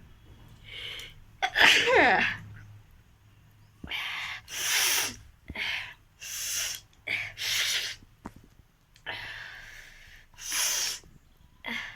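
A person sneezing repeatedly, about seven sneezes, with short breaths drawn in between them; the loudest sneeze, about two seconds in, ends in a falling voiced sound.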